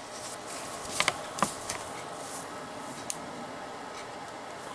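A few sharp clicks and taps with a light rustle as a small lighter box and its packaging are handled and opened.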